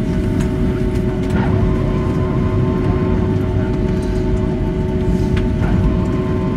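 Cabin noise inside a Boeing 757-300 taxiing after landing: a steady low rumble of the idling jet engines and rolling airframe, with a few steady hums held throughout.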